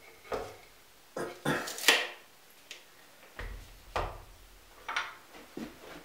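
Scattered knocks and taps of hand tools being handled and set down on wooden boards: a pencil and a tape measure laid on the wood. The sharpest knock comes about two seconds in, and a dull low thump follows at about three and a half seconds.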